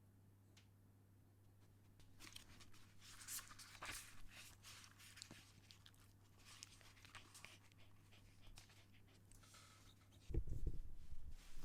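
A Shiba Inu moving about close to the microphone: scattered scratchy rustles and clicks, then heavy low thumps about ten seconds in.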